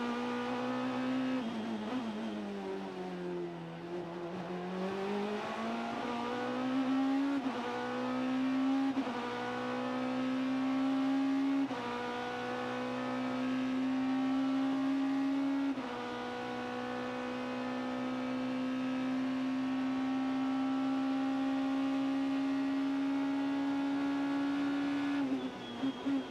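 In-car sound of a BMW M3 GT race car's V8 at racing speed: the engine note sags and climbs again, with several sudden steps in pitch at gear changes, then holds high and steady for about ten seconds. Near the end it turns choppy as the car brakes and downshifts.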